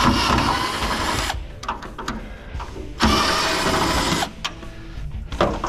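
Cordless drill with a long screwdriver bit running in two bursts of about a second each, some three seconds apart, turning screws out of a steel electrical panel.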